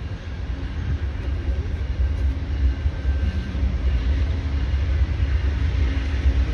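Amtrak GE Genesis diesel locomotive pulling a passenger train slowly into the station, its low engine rumble growing steadily louder as it approaches.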